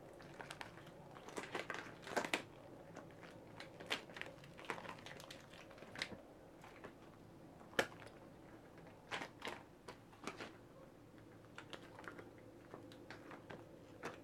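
Elbow-length latex gloves being worked up and smoothed over oiled arms: irregular small clicks and snaps of the rubber, with a few sharper pops.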